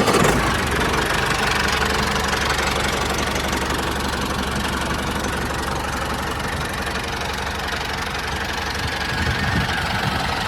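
Motor of a DIY mini tractor model running steadily.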